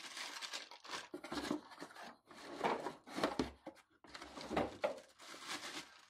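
Clear plastic packaging bag crinkling and rustling in several irregular bursts as it is pulled off a vacuum cleaner's floor head.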